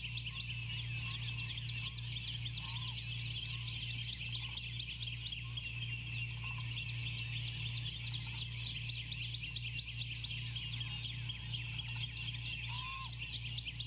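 Dense, continuous chorus of many small birds chirping at once, with a few short, lower calls now and then and a steady low electrical hum underneath.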